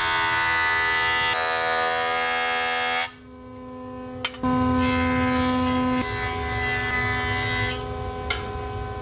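Jointer running with a steady, pitched machine whine as solid oak boards are fed across its cutterhead. The sound drops away about three seconds in and comes back loud a second or so later.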